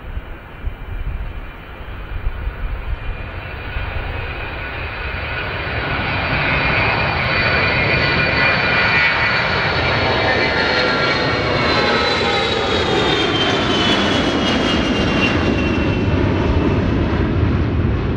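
The four Pratt & Whitney TF33 turbofans of a Boeing E-3A Sentry at takeoff power as the aircraft lifts off and climbs out close by. The roar builds over the first several seconds and then holds loud, with whining engine tones that drop in pitch as it passes overhead.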